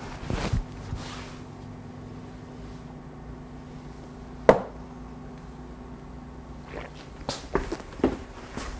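Steady low hum of room tone broken by scattered sharp knocks. The loudest knock comes about halfway through, and a few evenly spaced, footstep-like knocks follow near the end.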